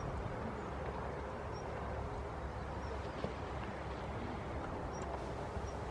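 Steady outdoor background noise by the water, a low rumble and hiss, with a few faint, short high chirps scattered through it.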